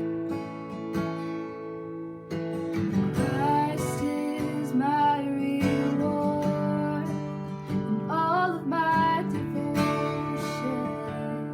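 Worship song introduction on a strummed acoustic guitar, with a gliding melody line above the chords from about three seconds in.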